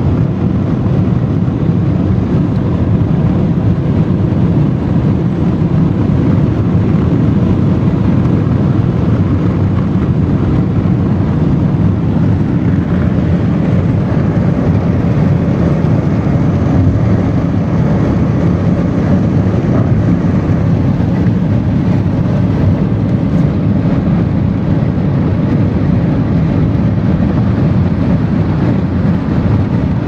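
Airliner cabin noise in flight: an even, steady low rumble of engines and airflow, used as white noise.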